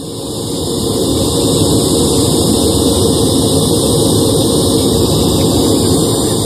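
Pink-noise test signal played loud through a PA sound system for a speaker phase and polarity check. It is a steady rushing hiss that fades up over about the first second, then holds level.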